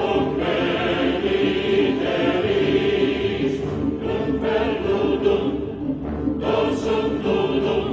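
Background choral music: a choir singing long held notes in chant-like phrases.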